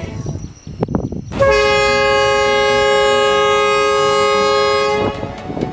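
Diesel-electric locomotive air horn (Vietnam Railways D19E) sounding one long blast of about three and a half seconds. It is a steady chord of several notes, starts about a second and a half in and cuts off sharply. Lighter knocks come before it and a low train rumble after it.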